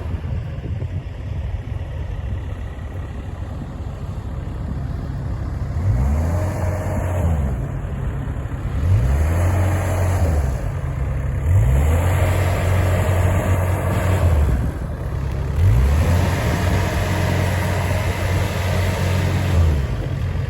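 Yanmar VIO55 mini excavator's diesel engine running, steady at first, then its speed rising, holding and dropping back four times.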